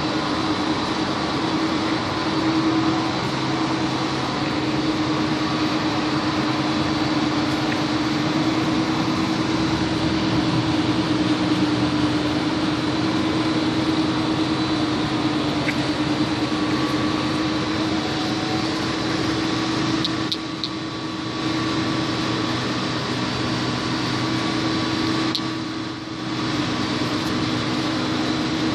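Suzuki RGR 150's single-cylinder two-stroke engine running steadily through a C.I.A Racing aftermarket exhaust, with two brief drops in level about twenty and twenty-six seconds in.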